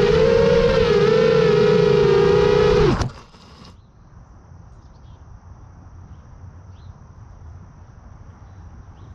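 Buzzing whine of an FPV quadcopter's motors and propellers, its pitch wavering up and down with throttle. It cuts off suddenly about three seconds in, leaving only faint outdoor background.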